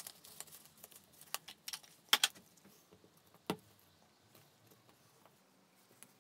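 Small clicks and taps of gloved hands handling a sealant tube and cloth at a car's rear window seal, with a quick double tap about two seconds in and a single sharper tap at about three and a half seconds.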